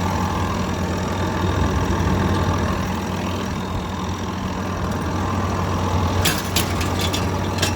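Komatsu D65EX-17 bulldozer's diesel engine idling steadily, with a few sharp clicks near the end.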